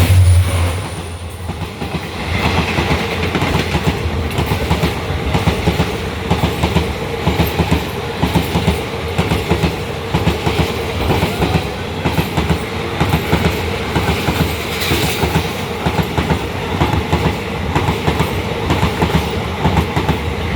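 Express train passing close by at speed: its wheels clatter rapidly and evenly over the rail joints, a steady clickety-clack. A loud low hum dies away about a second in.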